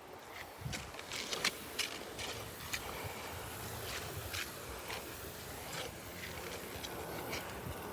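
Faint scattered clicks and rustles of a person moving about and handling things, over a low steady hum.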